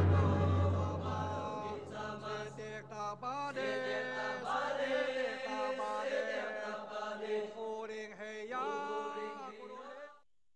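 Film trailer soundtrack: a sung vocal line with sliding pitch over music, a deep drone dropping away about a second and a half in. It stops abruptly near the end.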